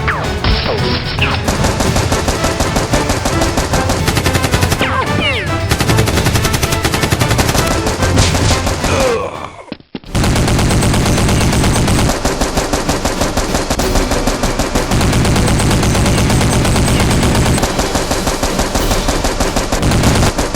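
Rapid automatic gunfire sound effects in a dense, continuous volley, with a faint music bed beneath. The firing cuts out sharply just before halfway through, then resumes at once.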